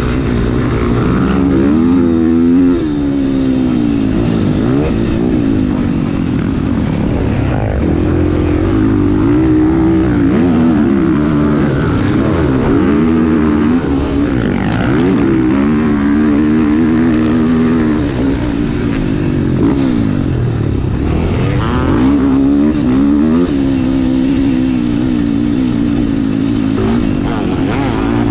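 Motocross dirt-bike engines racing on a track, revving up and falling off over and over as the riders work through the gears, with more than one bike heard at times.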